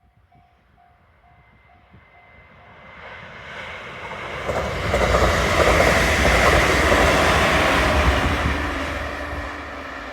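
Level-crossing warning bell ringing in even strokes, then a JR 313 series electric multiple unit approaching and passing at speed: the wheel and rail noise swells, is loudest from about four and a half seconds in, drowns out the bell, and fades as the train moves away near the end.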